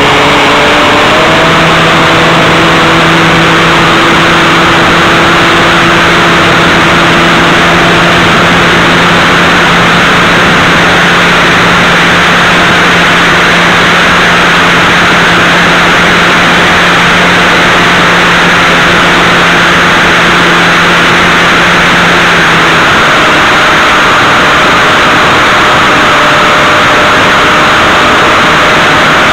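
Ultralight aircraft engine throttled up, its pitch rising in the first second or so, then running steadily at high power with heavy wind and engine rush, heard from on board during the take-off run. The engine note shifts about 23 seconds in.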